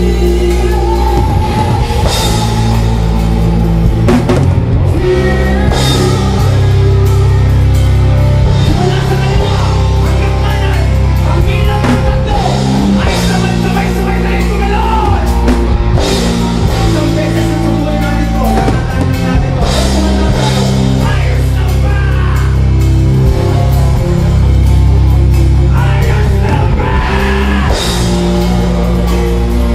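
Rock band playing live, with electric guitar, bass guitar and drum kit, and a vocalist singing into a handheld microphone.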